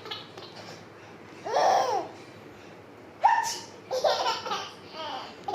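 A seven-month-old baby laughing in short bursts, with a sharp pretend sneeze a little over three seconds in setting off a fresh round of laughter.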